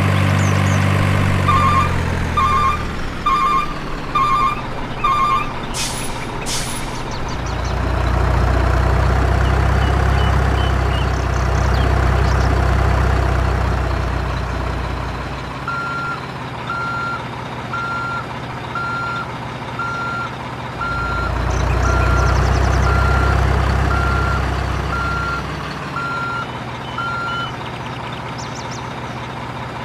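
Heavy truck sounds: a diesel engine rumbling and swelling twice, a reversing alarm beeping (five quick beeps near the start, then about a dozen slower beeps in the second half), and two short hisses like an air brake about six seconds in.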